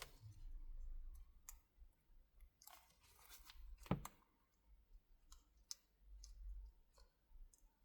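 Faint, scattered small clicks and taps from hands and tools working on a tablet's parts, with one sharper tap about four seconds in.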